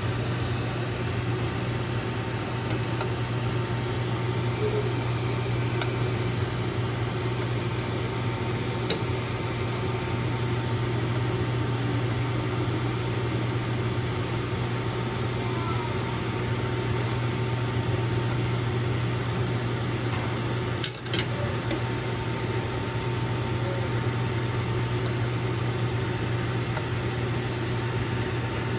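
Steady mechanical hum of a kitchen appliance or fan, with a few faint clicks and a short knock about 21 seconds in.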